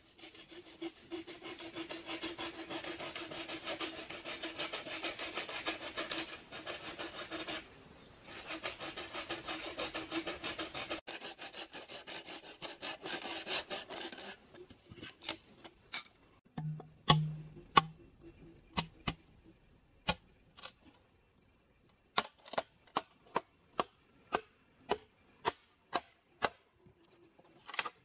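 Hand saw cutting through a wooden plank in steady back-and-forth strokes, with a short pause partway. Then the sawing stops and a run of sharp wooden knocks follows, coming about twice a second near the end.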